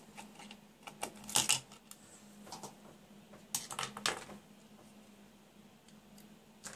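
Sharp clicks and taps of a boiler power-module circuit board being handled, its plug connectors worked and the board moved on the bench; about five clicks or short clusters in the first four and a half seconds.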